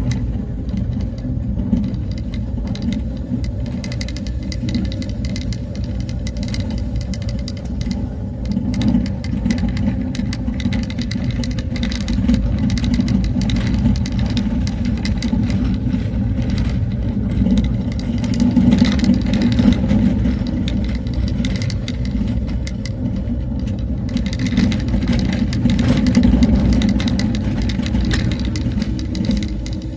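Motor vehicle engine running steadily while driving, with many small knocks and rattles throughout; it grows a little louder about two-thirds of the way in and again near the end.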